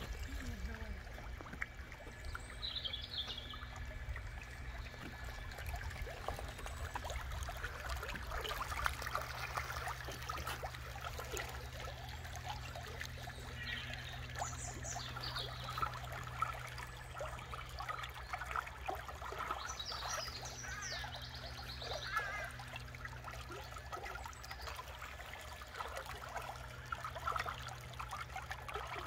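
Water splashing and trickling as Humboldt penguins swim and dive in a pool, with many small splashes over a steady low hum. A few brief high chirps come through about 3, 15 and 20 seconds in.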